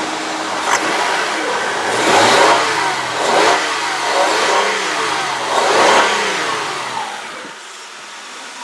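Honda Odyssey's 3.5-litre V6 blipped from idle four times, each rev rising and falling back, then settling to a steady idle near the end.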